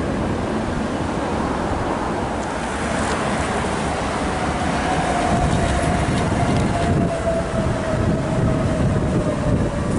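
Tram passing close by: a steady rumble of wheels on rails and running gear, with a faint whine that starts about halfway through and slowly falls in pitch.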